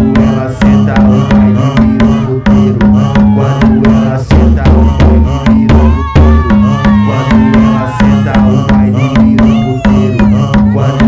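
Dance music from a DJ set: a steady, driving drum and percussion beat over a repeating bass line, with a held, slightly wavering melodic line in the middle.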